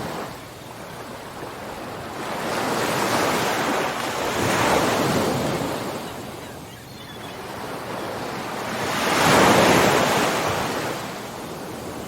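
Ocean surf: waves breaking and washing in slow surges of rushing noise. The loudest wave swells to a peak about three quarters of the way through.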